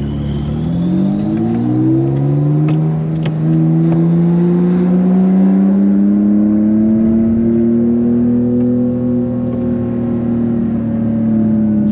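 The Porsche 991.2 Carrera GTS's tuned twin-turbo 3.0-litre flat-six, fitted with larger custom turbos, pulling under hard acceleration. The engine note climbs steadily for about eight seconds and dips slightly near the end. A thin high whine rises alongside it over the first few seconds.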